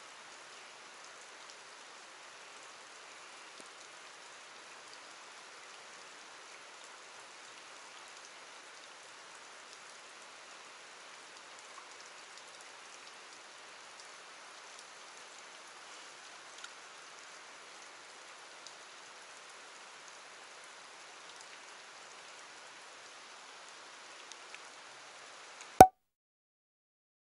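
Steady hiss of falling water with faint scattered ticks of drops. Near the end there is one sharp, loud click with a short tone in it, then the sound cuts off suddenly.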